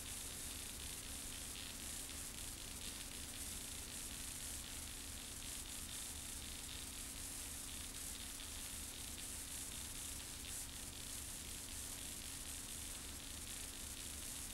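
Steady hiss with a low, even hum underneath: the background noise of a worn VHS tape recording, with no other sound standing out.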